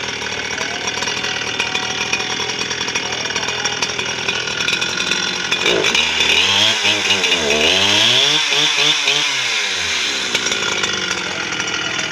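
Two-stroke chainsaw fitted with an Alaskan mill frame, running free with no wood in the cut: it idles steadily, is revved up and down a few times in the middle, then drops back to idle.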